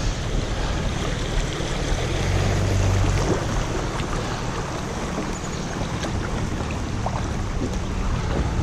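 Shallow river water rushing over a riffle around a drifting kayak, a steady wash with a low rumble underneath and a few faint knocks.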